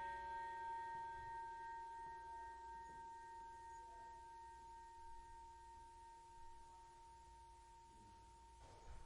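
Boxing ring bell ringing on after a single strike, its tone fading slowly away.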